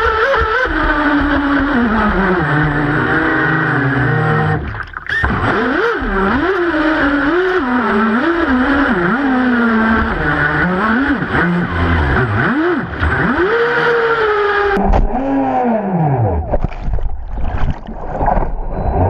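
Onboard sound of a twin-engine RC speedboat running fast over choppy water, its motor pitch rising and falling over and over with throttle and the waves, with water rushing against the hull. The sound drops briefly about five seconds in. Near the end the pitch swings down and up in arcs as the boat lifts in a burst of spray.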